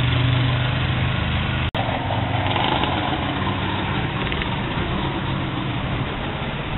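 A motor vehicle engine idling, a steady low hum over outdoor street noise. The sound cuts out for an instant a little under two seconds in, then the engine hum and street noise go on.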